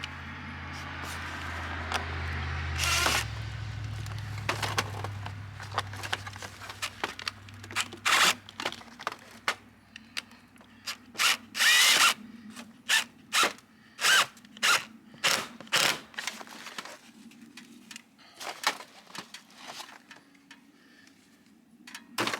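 A power drill running steadily as the heat pump line set cover coupler is screwed on, then a string of sharp clicks and knocks over several seconds as the parts are handled and fitted.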